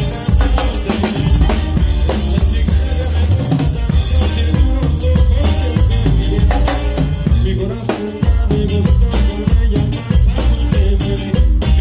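Live norteño band music with the drum kit close and loud: kick drum, snare and cymbals keep a steady beat over a bass line.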